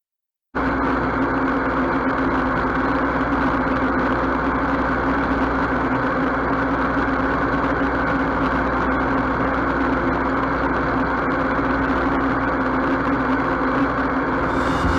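Fortschritt E-514 combine harvester running steadily: its diesel engine and machinery make an even drone with a constant hum. It starts abruptly about half a second in.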